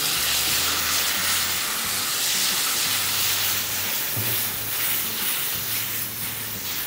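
Water poured into a hot steel kadai of frying masala, hitting the hot oil with a loud steamy hiss and sizzle while a wooden spatula stirs. The hiss slowly dies down as the water settles into the masala.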